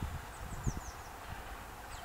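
A small songbird repeating a short phrase of quick, high, falling notes, about five to a phrase, over irregular low rumbles of wind buffeting the microphone.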